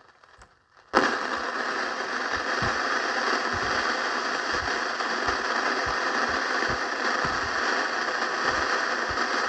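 Realtone Globe Spanner 2437 transistor radio hissing with steady static from its speaker, tuned off-station, with irregular low pops under the hiss. The static starts abruptly about a second in, after near silence.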